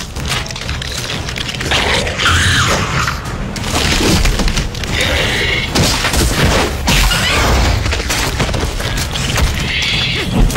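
Deep booming and rumbling with repeated thuds, mixed with dramatic music.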